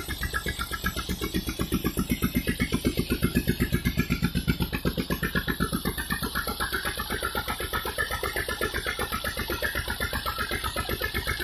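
18 HP diesel engine driving a water pump, running steadily with an even, pulsing beat.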